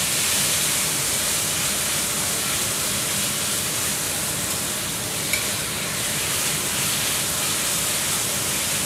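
Sliced beef sizzling steadily in a hot stainless-steel wok over a high flame, with a metal spatula stirring it through the pan.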